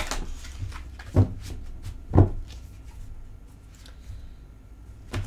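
A deck of tarot cards being handled and shuffled by hand: light card clicks and rustles, with two dull thumps about one and two seconds in.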